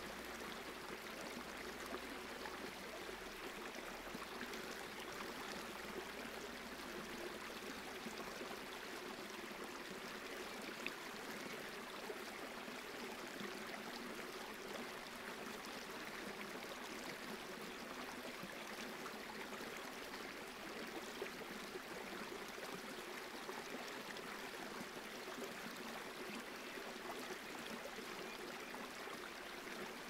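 A small, shallow stream running over rocks, a steady babble of water.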